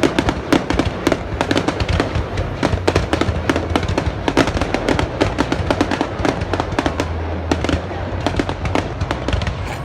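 Fireworks going off in a dense, continuous barrage of sharp pops and bangs, many each second.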